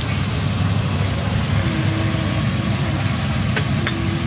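Spice paste (masala) with tomato frying and sizzling in a pan over a steady low rumble, with two sharp clicks of a spoon on the pan near the end.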